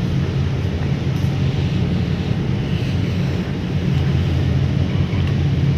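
Steady low hum of a ferry's engines running under way, under an even rushing noise.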